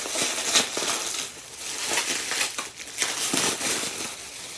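Packaging material being handled: irregular rustling and crunching as hands dig through a box of wrapping and packing fill.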